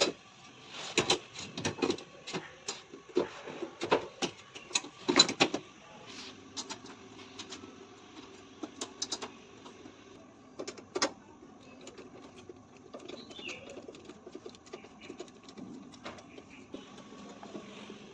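A run of sharp clicks and knocks, dense for the first few seconds and then scattered, like parts and tools being handled during work on a front-load washing machine.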